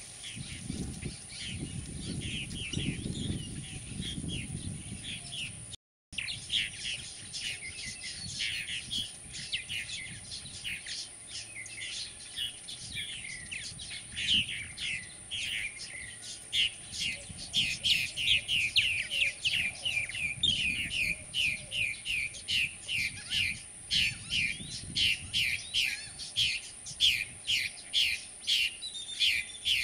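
Purple martin nestlings begging at the nest gourd: a long run of short, falling chirps, scattered at first, then quickening into a rapid, regular series of about two to three a second in the second half. A faint steady high-pitched whine runs underneath.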